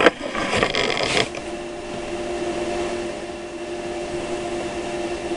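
Sears Craftsman router spinning in its mount on a CNC machine, a steady whine over a hiss. Rustling and knocks of camera handling come in the first second or so.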